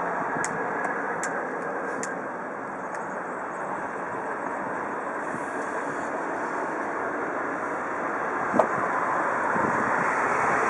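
Helicopter flying overhead: a steady, distant drone of rotor and engine that dips slightly, then grows louder toward the end. A single sharp click about eight and a half seconds in.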